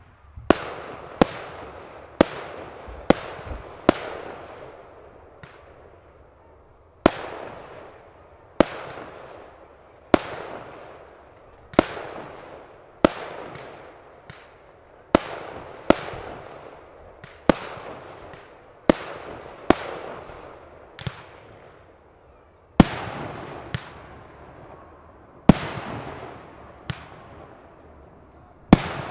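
Aerial fireworks bursting in quick succession, about one sharp bang a second, each bang followed by a fading echoing tail. The loudest bangs come near the end.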